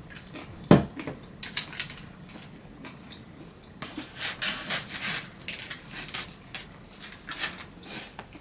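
Chewing crunchy pizza crust close to the microphone: a run of crisp, crackly crunches, with one sharp knock about a second in.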